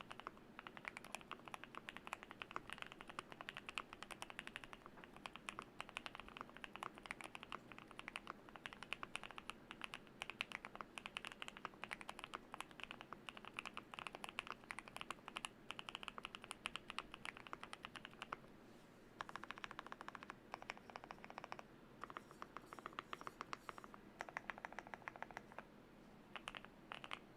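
Typing on a GMK67 mechanical keyboard with lubed Gateron Oil King linear switches, PBT Cherry-profile keycaps and foam-modded case: a fast, dense run of key clacks, breaking after about eighteen seconds into shorter bursts with brief pauses between them.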